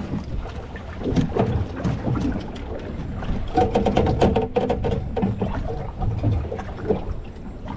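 Boat rocking in choppy water, with wind buffeting the microphone and a low, steady rumble. Midway through comes a quick run of clicks and knocks.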